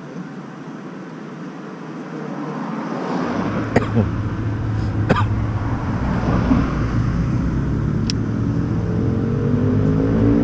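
A motor vehicle engine grows steadily louder. Its pitch climbs near the end as it revs or speeds up, and a few sharp clicks sound over it.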